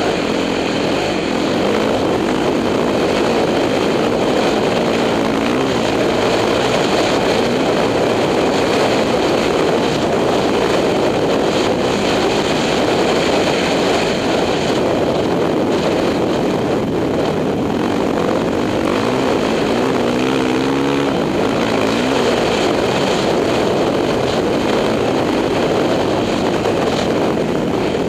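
2006 Yamaha YZ450F's single-cylinder four-stroke engine running under way, close to the microphone, its pitch rising and falling with the throttle, most plainly around five and twenty seconds in.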